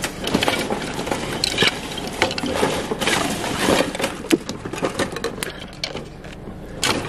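Junk being handled and moved about in a pile: irregular knocks, clatter and scraping with rustling in between.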